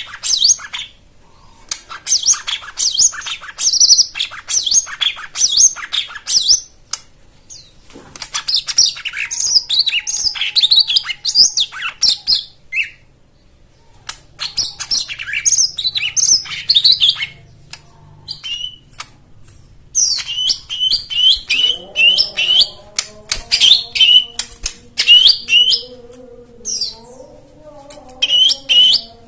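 Cucak ijo mini (lesser green leafbird, 'jomin') singing in bursts of rapid, high chirps and trills, phrase after phrase with short pauses between. In the last third a low steady hum, stepping slightly in pitch, runs underneath.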